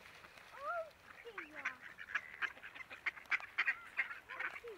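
A flock of ducks, mallards and white domestic ducks among them, quacking in many short calls one after another.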